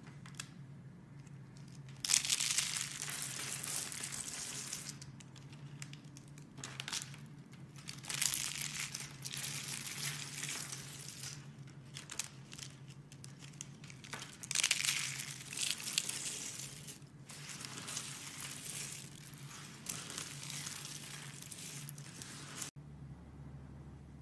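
Dry soap curls crushed and crumbled by hand: crisp crackling crunches in several bouts of a few seconds each, over a faint low hum.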